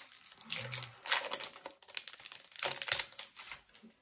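Crinkling of a Pokémon booster pack's foil wrapper as it is handled and opened, in a run of short crackly bursts, loudest about a second in and again near three seconds in.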